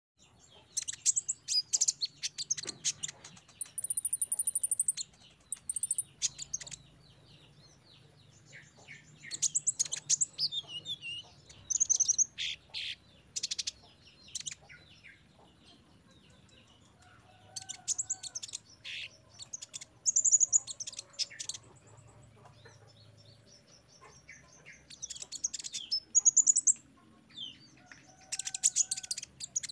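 Male kolibri ninja (Van Hasselt's sunbird) singing: repeated phrases of rapid, high-pitched chirps and trills, broken by pauses of a few seconds.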